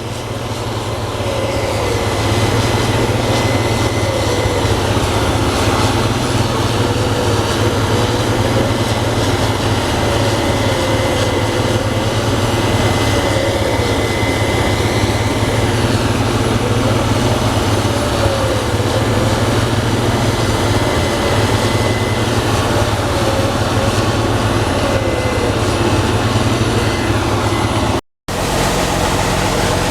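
Case IH Axial-Flow combine harvester running at work: a steady, loud diesel drone with a thin, constant high whine above it. The sound cuts out for a moment near the end, then resumes.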